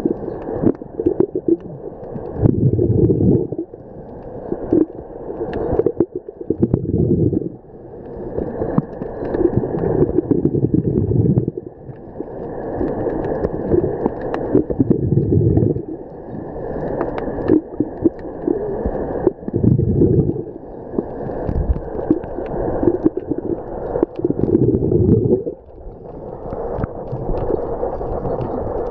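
Scuba diver's breathing recorded underwater: the regulator's exhaled bubbles rumble and gurgle in repeated bursts every few seconds, with quieter inhalations between.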